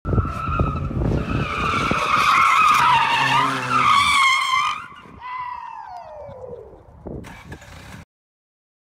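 Car drifting: tires squealing with a wavering high tone over the running engine for about five seconds. Then a tone falls steadily in pitch and fades, and the sound cuts off suddenly near the end.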